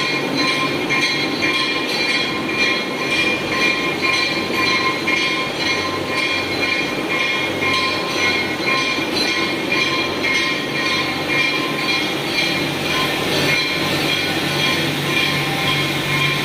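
Wire-making factory machinery running steadily: a continuous mechanical whir with a few held whining tones and faint repeated clicking.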